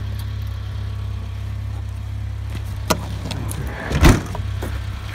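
Talbot Express camper van's engine idling steadily, with a couple of light clicks about three seconds in and one loud clunk about four seconds in.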